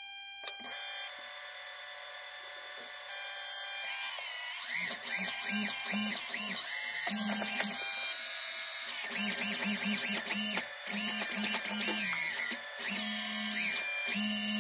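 Brushless motors of a FORCE1 F100 Ghost quadcopter, propellers off, spinning up and down in repeated short pulses as the throttle is worked, giving a whine that rises and falls in pitch. For the first few seconds only steady electronic tones are heard.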